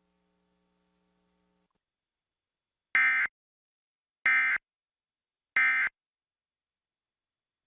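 Emergency Alert System end-of-message (EOM) tones: three short, identical bursts of digital data noise, about 1.3 seconds apart, starting about three seconds in. They mark the end of the alert message.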